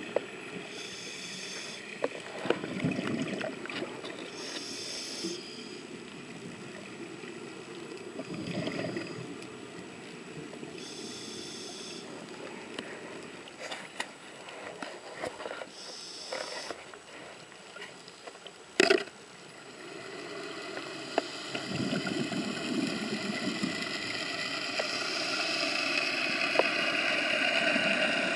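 Scuba regulator breathing underwater: a hissing inhale every few seconds and bubbly exhales rumbling past the camera. There is one sharp knock about two-thirds through. A steady engine hum carried through the water grows louder over the last few seconds.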